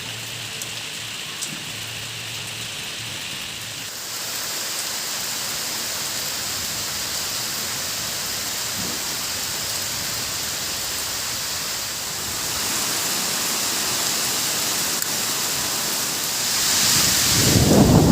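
Steady rain falling, stepping up louder about four seconds in and again about two-thirds of the way through. A low rumble of thunder builds near the end.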